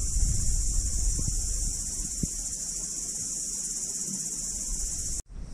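Steady, high-pitched insect chorus with a low rumble underneath; the sound cuts off abruptly near the end.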